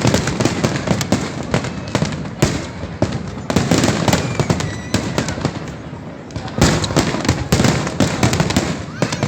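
Large fireworks display: a rapid, continuous barrage of bangs and crackles, easing off briefly past the middle and growing dense again about six and a half seconds in.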